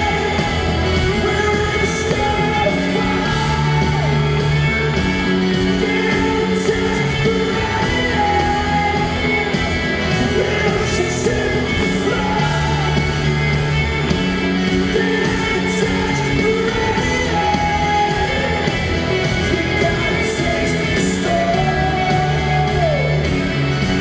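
Live pop-rock band playing, with electric guitar and a male lead vocal singing over it, heard from the crowd in a large hall.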